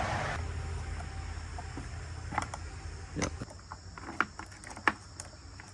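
A wrench loosening the side-cover nuts that hold a chainsaw's bar: four sharp clicks and knocks spread over a few seconds. Crickets chirr steadily in the background.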